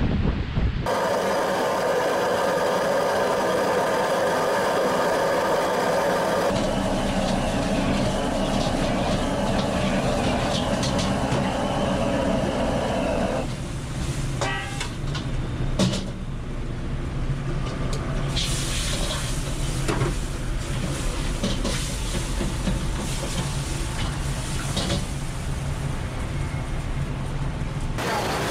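Steady whirring and hiss of a roast-duck kitchen, broken into several short cuts, with scattered metal clinks and knocks in the second half as ducks on hooks are handled at a steel roasting oven.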